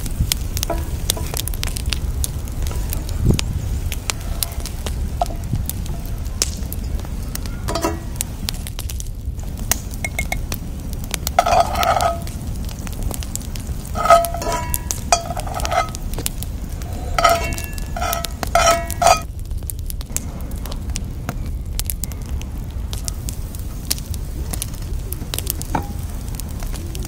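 Onions sizzling and crackling in hot oil in a cast-iron pan over a wood fire. In the middle, metal tongs clink against the pan several times, each clink short and ringing.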